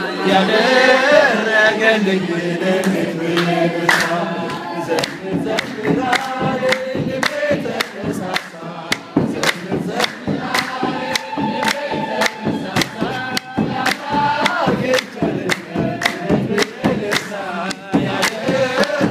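A congregation singing a hymn together, many voices at once, with steady rhythmic hand clapping keeping the beat from about two seconds in.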